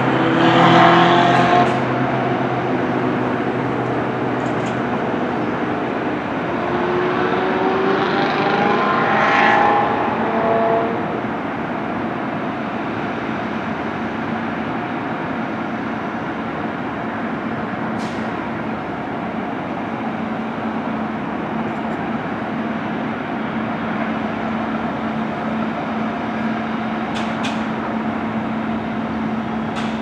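Steady vehicle traffic noise, with a vehicle going by about a second in and another around nine seconds in, its engine pitch shifting as it passes; a steady low hum sets in during the second half.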